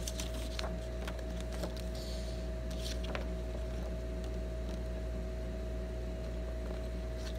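Steady low room hum with a faint constant tone, with a few soft clicks and a brief paper rustle in the first three seconds as the pages of a three-ring binder are turned.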